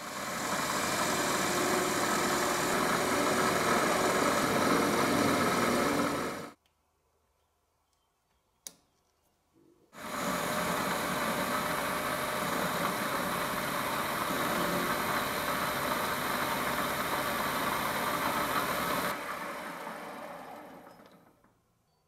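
Metal lathe running while a carbide insert turns a small metal part, a steady machine whine and cutting noise. It stops abruptly, a single click sounds in the quiet gap, then the lathe runs again and dies away near the end.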